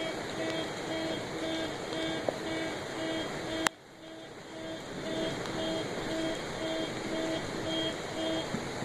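Steady rain with an electronic beeping, like an alarm or warning beeper, repeating about twice a second and stopping near the end. A sharp click comes a little over a third of the way in, and the sound dips briefly after it.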